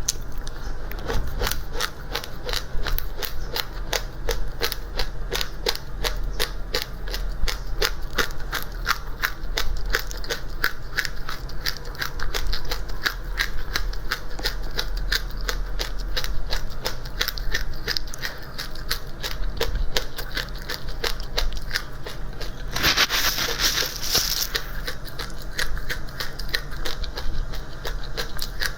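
Close-up chewing of crunchy dry seeds: a steady run of sharp crunching clicks, several a second. Near the end comes a brief hissing rustle.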